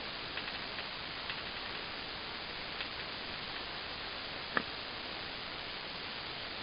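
Steady hiss with a few faint ticks and one sharp click about four and a half seconds in.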